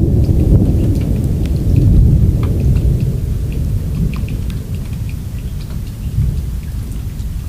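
Thunder rumbling low and long, loudest in the first couple of seconds and then slowly fading, with scattered raindrops ticking on top.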